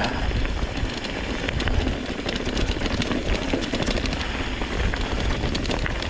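Mountain bike rolling down a loose, rocky dirt singletrack: a steady low rumble of wind and tyre noise on the camera's microphone, with many quick clicks and rattles from the bike and the stones under the tyres.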